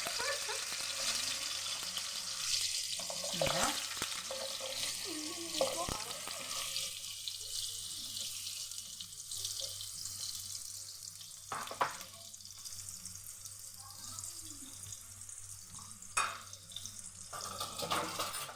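Carrot slices sizzling in hot oil in a tagine, with a few clicks and knocks as the slices are set in the pan. The sizzle eases somewhat in the second half.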